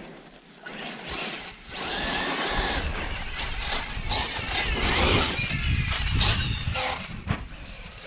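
Brushless electric motor of a 1/5-scale Losi 5ive-B RC buggy whining as it revs up and down while the buggy runs through sand. A low rumble joins about two and a half seconds in.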